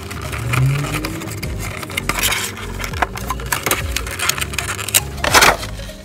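Clear plastic blister packaging being pulled out and handled: stiff plastic crinkling, clicking and scraping in quick irregular bursts, with a louder crackling rustle about five seconds in.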